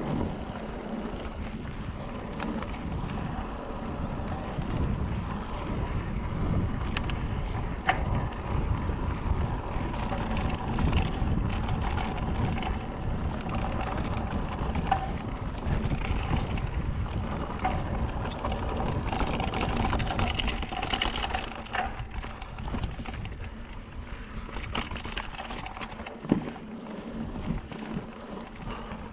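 Mountain bike being ridden over a rough dirt trail: wind buffeting the microphone and a steady rumble from the tyres, with scattered rattles and knocks from the bike.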